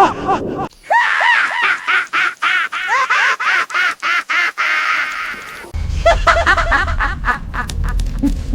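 A witch's high-pitched cackling laugh: rapid rising-and-falling cackles, several a second. A short break comes just before a second in, and about six seconds in a different cackle takes over with a low hum underneath.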